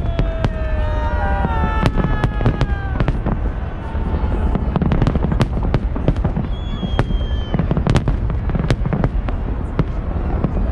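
Large fireworks display: a dense, irregular barrage of bangs and crackles over a continuous low rumble. Several whistles slide down in pitch in the first few seconds, and a shorter high whistle comes around the seventh second.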